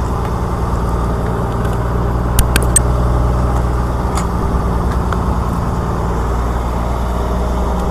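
A fishing boat's engine running steadily with a low drone, with three quick sharp clicks about two and a half seconds in.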